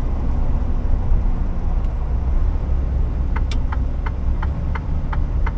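Steady low drone of a Mercedes timber truck driving, heard inside the cab. About three seconds in, the turn-signal indicator starts ticking evenly, roughly three ticks a second, as the truck prepares to turn off the road.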